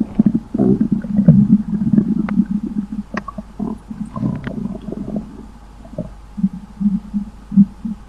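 Stomach rumbling and gurgling: irregular low gurgles with little pops and clicks, busy at first and thinning to separate short gurgles over the last couple of seconds.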